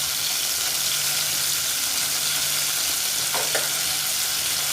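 Food frying in a pan with a steady sizzle, and two short clicks about three and a half seconds in.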